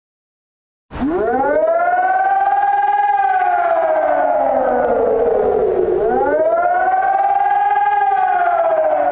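Civil defense siren wailing after about a second of silence: the pitch rises, slowly falls, then rises and falls again, about five seconds to each cycle.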